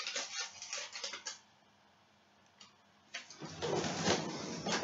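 Small clicks and knocks of things being handled on a kitchen counter, a gap of near silence, then a stretch of rustling and clatter.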